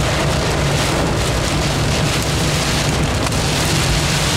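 Pea-size hail and heavy rain drumming on a car's roof and windshield, heard from inside the cabin as a dense, steady patter of many small hits. A steady low rumble of the moving car runs underneath.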